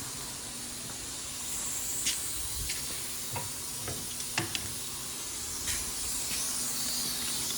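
Steady hiss with a handful of light clicks and knocks from tools and parts being handled at the wheel hub.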